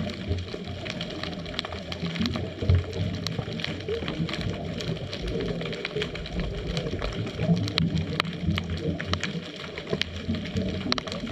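Underwater sound of a scuba dive picked up by a GoPro inside its waterproof housing: a muffled low rumble with a steady scatter of sharp clicks and crackles.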